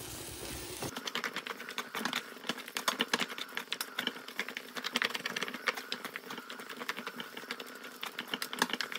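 Minced pork throat and onions sizzling with a quick, irregular crackle in an enamel roasting pan, stirred and scraped with a wooden spatula. The water is cooking out of the onions over turned-down heat.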